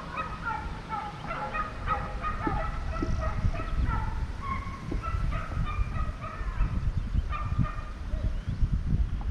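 A flock of birds chattering: a rapid, overlapping run of short high calls, over a low rumble of wind on the microphone.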